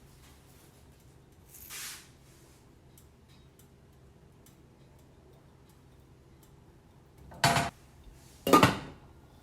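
Kitchen cookware clattering: two short, loud clanks about a second apart near the end, after a softer knock about two seconds in, as pots and utensils are handled.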